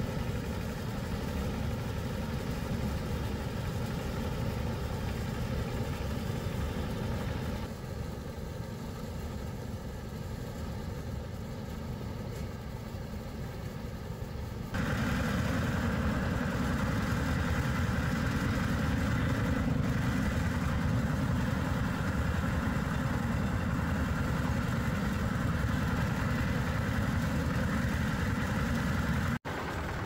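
An engine running steadily. It drops slightly about eight seconds in, gets louder and fuller about fifteen seconds in, and cuts out for an instant near the end.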